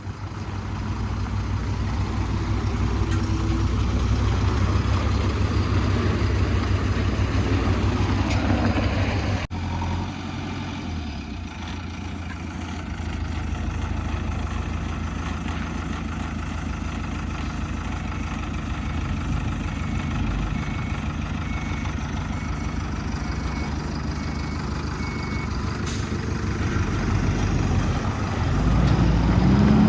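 Heavy diesel engines of construction machinery and trucks running steadily, with a faint series of short beeps partway through. Near the end an engine revs up and grows louder.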